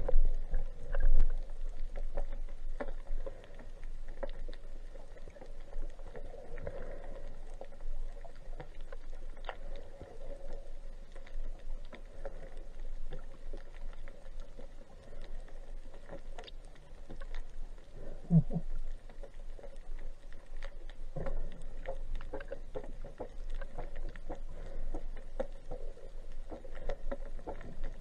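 Underwater ambience as heard by a submerged camera: a dull, steady wash of water with many faint scattered clicks and crackles. There are a couple of louder swishes in the first second or so, and a brief low tone about eighteen seconds in.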